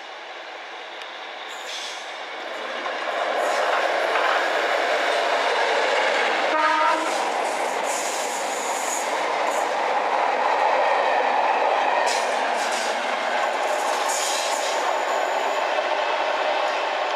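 A Class 73 electro-diesel locomotive hauling yellow test-train coaches passes close by, its rumble and wheel noise rising to a loud, steady roar a few seconds in. A short horn blast sounds about halfway through, and brief high-pitched wheel squeals come and go.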